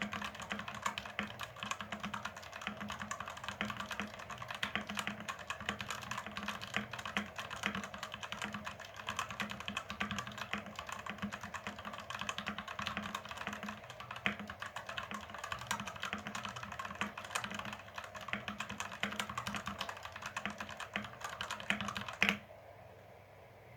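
Fantech Maxfit61 60% mechanical keyboard being typed on fast, a steady stream of key clicks. Near the end the typing stops with one louder clack.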